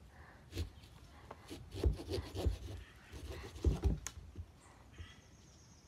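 A pumpkin being cut with a small carving saw: irregular scraping and rasping strokes through the rind, with dull knocks, loudest about two seconds in and again near four seconds.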